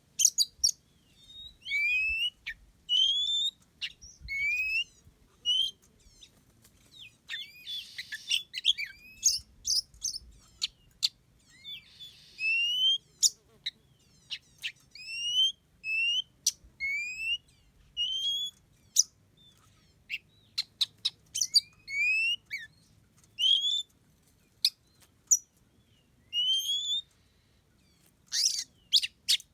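Oriental magpie-robins singing and calling: many short rising whistled notes repeated again and again, mixed with sharp high chips and a few bursts of harsher chatter.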